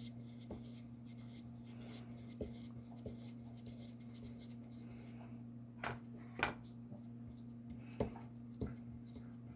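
Paintbrush working gouache onto paper: faint, scattered short strokes and taps, the loudest pair about six seconds in, over a steady low electrical hum.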